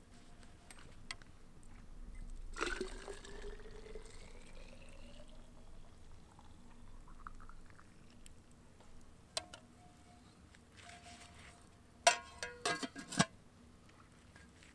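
Liquid poured into a vessel, the pouring tone rising steadily in pitch over a few seconds as it fills. Near the end, a quick cluster of sharp clinks and knocks.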